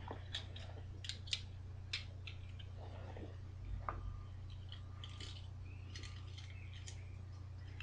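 Hand rummaging in a fabric backpack pocket: scattered light clicks and rustles, the sharpest about four seconds in, over a steady low electrical hum.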